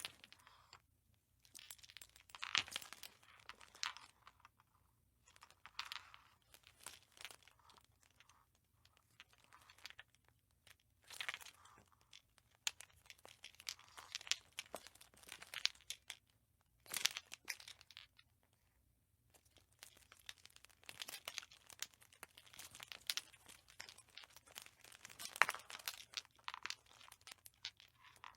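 Light bulb being handled, giving irregular clusters of crinkly, crunching crackles and sharp clicks with short pauses between them.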